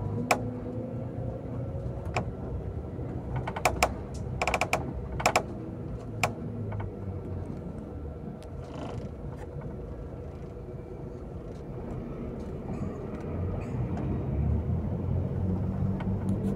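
Bus engine running and road rumble heard from inside the moving bus, with a scatter of sharp clicks and rattles in the first six seconds or so. The rumble grows louder near the end.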